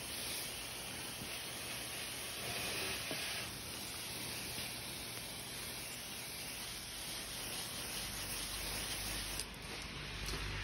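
Juice Box solution sprayer wand spraying cleaning solution against house siding: a steady hiss of spray.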